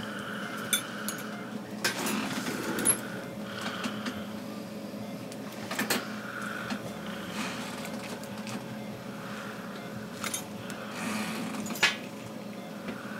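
Steady hum of dental operatory equipment, with soft hissing that comes and goes and a few light clicks of metal instruments.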